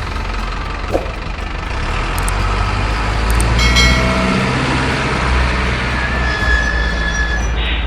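Heavy truck engine sound running steadily with a low rumble that swells a little midway, as from the RC miniature UD Quester truck. A brief tone sounds a little under four seconds in.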